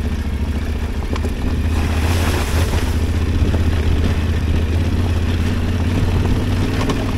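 Adventure motorcycle engine running steadily while riding, with a dense rushing noise over it.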